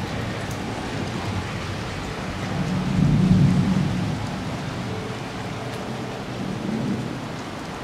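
Steady rain hissing, with a low rumble of thunder that swells and fades about three seconds in.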